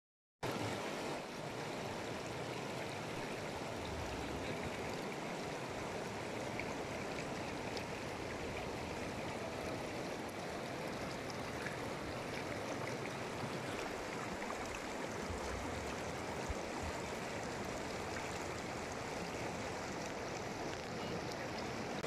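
Shallow mountain river flowing fast over stones: a steady, even rush of water.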